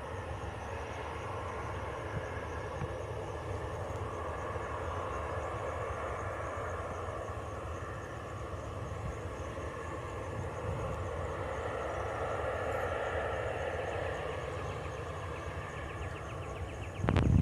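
Airliner jet engines running steadily with a low rumble, swelling slightly later on, then a few sudden loud knocks near the end.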